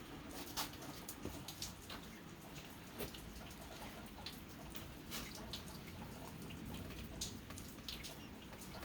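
Scattered faint drips and light clicks: cutting oil dripping inside the 24-inch rock saw while the freshly cut slab is handled and lifted out.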